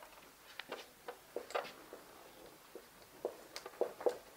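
Marker writing on a whiteboard: a string of short, irregular squeaks and taps as the letters are drawn.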